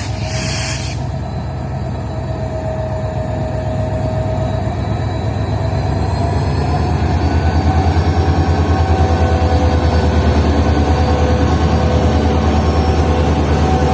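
Train running over the track: a heavy low rumble with a fast, regular pulsing. It grows louder over the first half, then holds steady, with thin high wheel-squeal tones on top.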